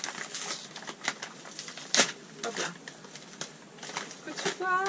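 Yellow padded paper envelope being torn open and handled: an irregular run of crinkles and small tearing clicks, with one loud sharp crackle about two seconds in.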